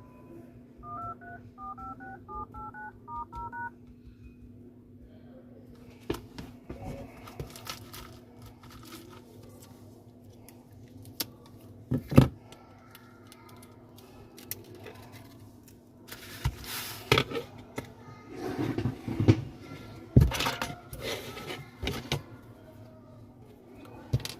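Phone dialer keypad tones: about eight short two-tone key beeps in quick succession, followed by scattered clicks and knocks of handling, one sharp louder click, and several louder bursts of noise near the end.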